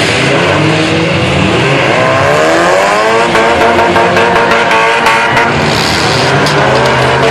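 Demolition derby car engines revving hard, one engine's pitch climbing and then holding high, with a run of sharp knocks in the middle.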